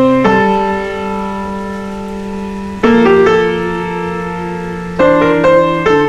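Background piano music: slow chords struck and left to ring and fade, a new chord about every two to three seconds.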